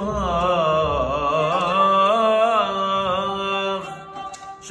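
Male voice singing a wordless, ornamented melisma of a mawwal in maqam Nawa, the pitch bending and wavering, over qanun accompaniment. The voice fades out about four seconds in, leaving a few soft plucks.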